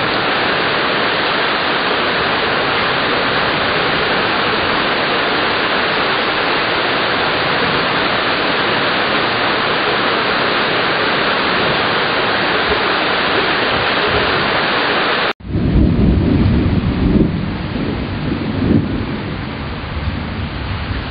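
Heavy thunderstorm rain pouring down in a loud, steady hiss. The sound breaks off suddenly about fifteen seconds in, then the rain goes on under a low rumble of thunder that swells and fades a few times.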